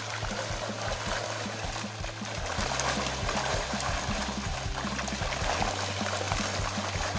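Water splashing and churning as a crowd of tilapia thrash inside a seine net drawn in shallow pond water, with background music underneath.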